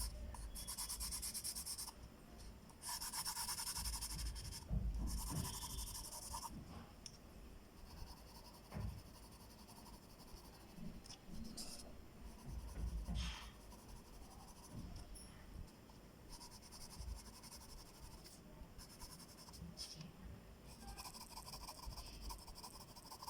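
Pencil shading on paper: runs of rapid back-and-forth scratchy strokes. They come in bursts in the first few seconds and again near the end, with softer, scattered strokes between.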